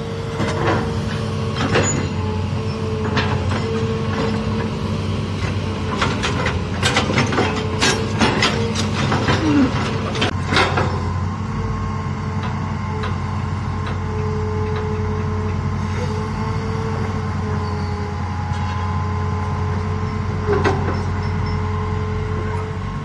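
Hitachi crawler excavator's diesel engine running steadily under load while it digs, with a cluster of sharp knocks and clanks from the bucket working hard, rocky ground in the first half and one more knock near the end.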